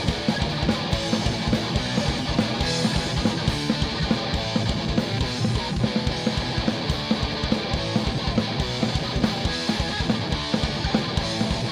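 A live punk rock band playing an instrumental break: electric guitar over fast, steady drumming, with no vocals.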